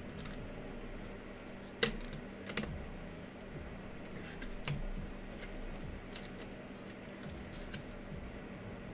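Glossy Donruss Choice basketball cards flipped through and slid against one another by hand, making scattered sharp clicks and snaps, the loudest a little under two seconds in, over a faint steady hum.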